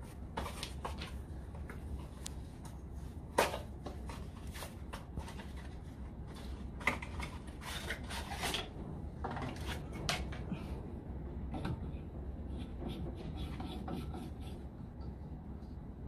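Scattered small clicks, rubs and knocks of a gloved hand handling a light bulb and fitting it into a plastic lamp receptacle, with one sharp knock a little over three seconds in, over a steady low hum.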